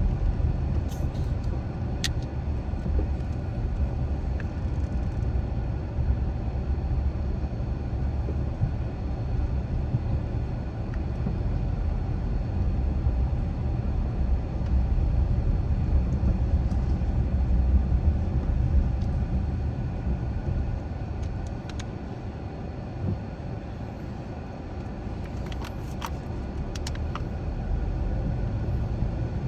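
Car driving at steady speed, a low, steady rumble of road and engine noise. It eases off a little for a few seconds near the end, and there are a few faint clicks.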